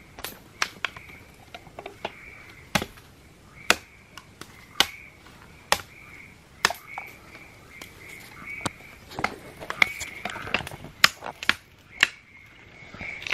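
Sharp, irregular snaps and cracks of burning and breaking wood as a campfire gets going, about one a second and bunched near the end, over a steady high-pitched animal chorus from the forest.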